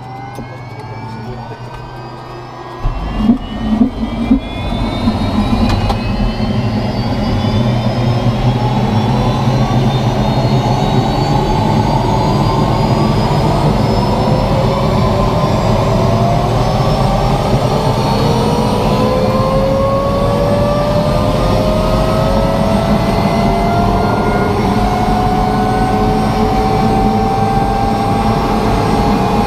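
Mi-2 helicopter's twin turboshaft engines starting and spooling up. A rising turbine whine is joined about three seconds in by a sudden louder rush with a few sharp pops, then several whining tones glide steadily upward.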